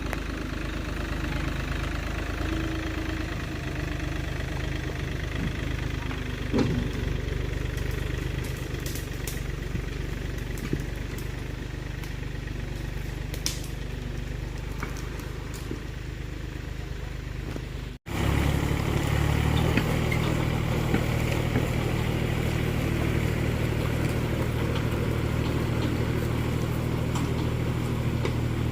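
An engine running steadily at idle. It breaks off for an instant about two-thirds of the way through, then resumes slightly louder and fuller in the low end.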